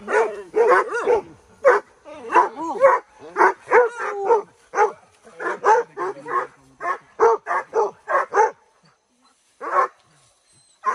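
Boar-hunting dogs barking and yelping in quick, repeated runs of calls, several a second, with a short lull near the end.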